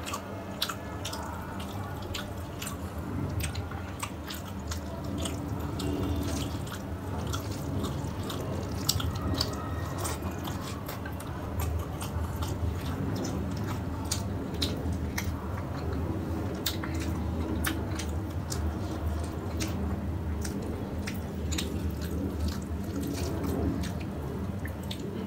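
Wet, sticky clicks and squishes of bare fingers kneading rice with fish curry and pulling the fish apart, many small clicks in quick succession over a steady low hum.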